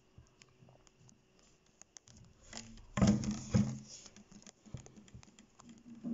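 Light scattered clicks and scratches, with a short, louder rustling clatter about three seconds in that lasts under a second.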